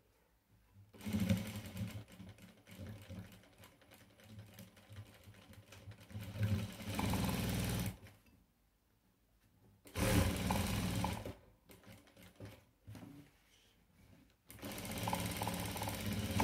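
Sewing machine stitching in short runs of one to two seconds, stopping and starting again about four times, with small ticks and clicks in the pauses between runs.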